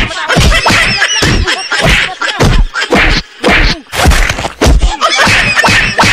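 A stick beating a person's bare back with repeated whacks, about two a second, with cries in between.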